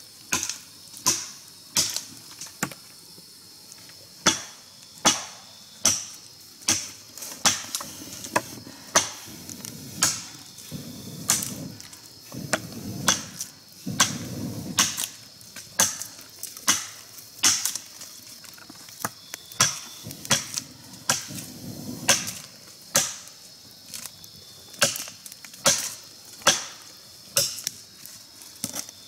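Repeated chopping blows, about one or two sharp strikes a second at an uneven pace, like a blade striking wood.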